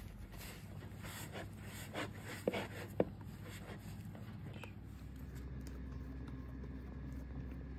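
Hands kneading soft, sticky dough against a plastic bowl: irregular soft squelches and scrapes, with a couple of sharper taps near the middle. After that, only a steady low hum.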